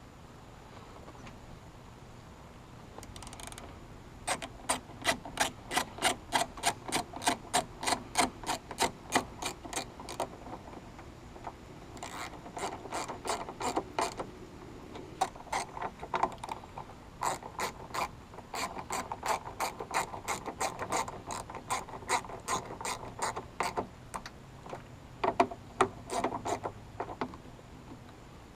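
Ratchet clicking in runs of quick, even clicks, about three or four a second, stopping briefly a few times before starting again.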